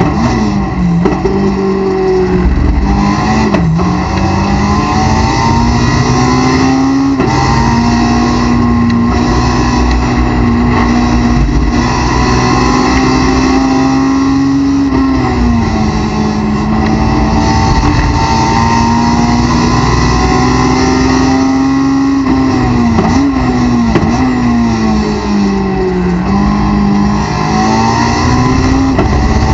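Honda S2000 race car's four-cylinder engine heard from inside the cockpit at full race pace. It climbs steadily through the revs and drops sharply at an upshift about halfway through. Later it falls through a run of quick downshifts with throttle blips under braking for a slow corner.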